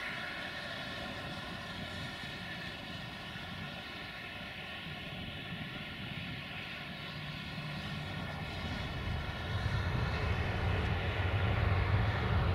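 GM-engined diesel locomotive running as it approaches, a steady engine drone that grows louder and deeper from about two-thirds of the way in.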